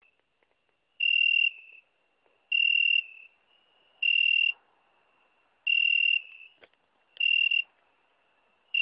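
A zrikavac, a long-antennaed singing insect, calling at night in loud half-second chirps of a pure high tone, repeated about every second and a half. A fainter, steady trill at the same pitch carries on between the chirps.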